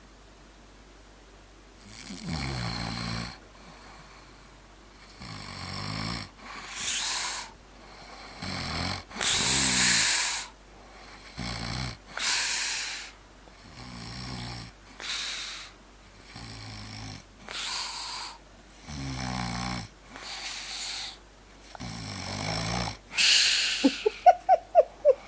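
A sleeping person snoring. After a quiet start, about eight breaths come roughly every three seconds, each a low rattling snore followed by a breathy hiss.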